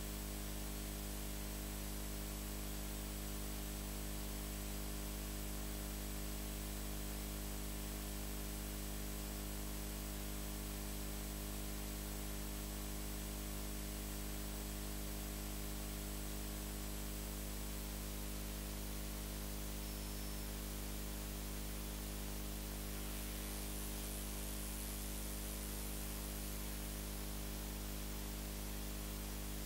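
Steady low electrical hum with a constant hiss, unchanging throughout; no music or other event stands out.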